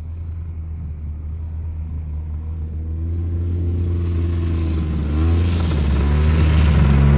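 A vehicle engine running, getting louder and gradually rising in speed, with a clearer climb in pitch about five seconds in.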